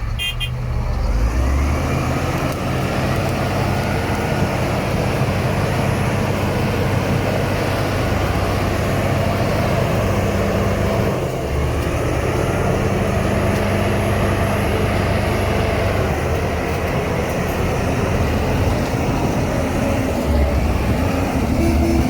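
Heavy diesel engine of earthmoving machinery running hard and steadily, its note dropping out briefly about halfway through before picking up again.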